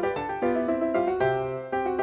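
Background music: a light piano-like keyboard melody with notes struck a few times a second.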